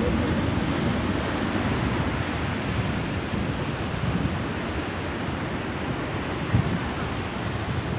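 Small waves washing onto a sandy beach, a steady rush of surf, with wind rumbling on the microphone.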